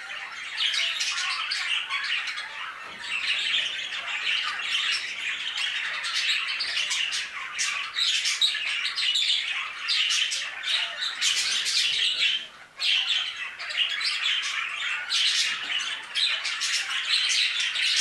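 A flock of pet budgerigars chattering without a break, many overlapping calls, with a brief lull about two-thirds of the way through.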